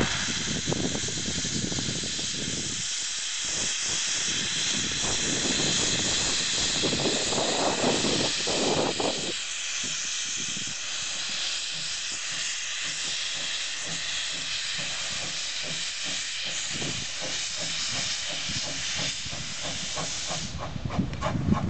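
Prussian P8 steam locomotive getting under way, steam hissing loudly and steadily from its open cylinder drain cocks, with uneven low chuffs from the chimney that settle into a steady beat near the end. The hiss drops away shortly before the end.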